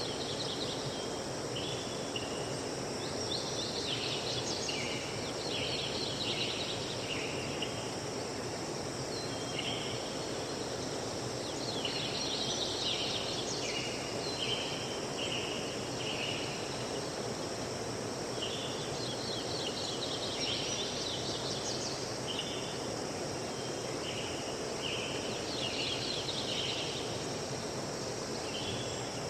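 Forest ambience: songbirds singing short clusters of high notes that come again every few seconds, over a steady rushing background hiss.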